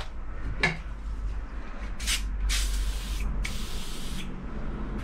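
WD-40 sprayed from an aerosol can in three hissing bursts, a short one about two seconds in, then two longer ones.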